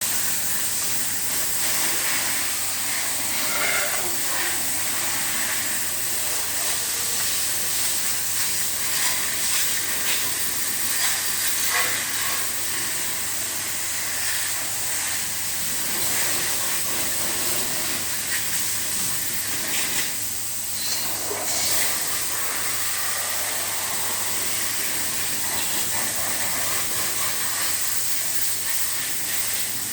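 Steady hiss of a high-pressure water jet spraying an air conditioner during a water wash service, with a faint steady hum underneath.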